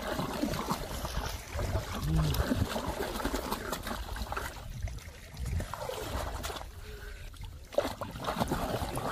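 Shallow river water splashing and sloshing irregularly as an arm gropes around inside a bamboo cone fish trap, feeling for trapped fish.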